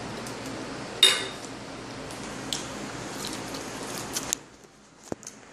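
A metal spoon clinking sharply once on a dish about a second in, with a short ring, then a few lighter clicks and taps of utensils. Under it a steady hiss that drops away near the end.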